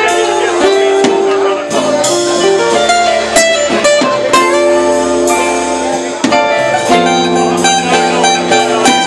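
Live band playing an instrumental passage: guitar and bass over a drum kit, with steady drum and cymbal hits.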